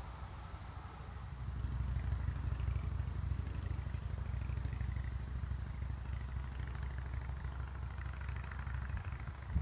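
Wind buffeting the microphone: a low, uneven rumble that grows louder about a second and a half in and then holds steady.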